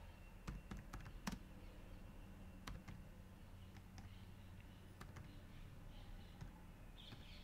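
Faint, sparse keystrokes on a computer keyboard, single clicks spaced about a second apart, over a low steady hum.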